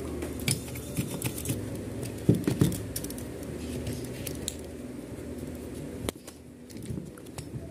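Handling noise from cleaning an electric fan motor: a cloth rubbing the rotor shaft and bearing housing, with scattered small metal clicks and knocks. Two sharper knocks come about two and a half seconds in.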